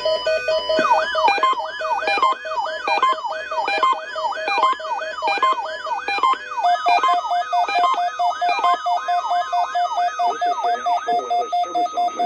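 Electronic alert signal: a siren-like tone sweeping down about three times a second over steady electronic tones, cutting out about eleven seconds in. It is the weekly test signal of a weather-radio public warning broadcast.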